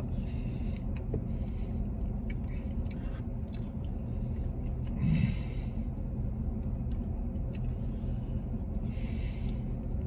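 A man eating ice cream with a plastic spoon: faint mouth and spoon clicks, a short hum through the nose about halfway, and a nasal exhale near the end, over a steady low hum inside a vehicle's cabin.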